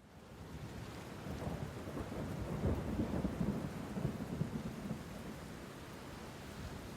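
A low rolling rumble that builds about a second in, is loudest in the middle and eases off, over a steady hiss.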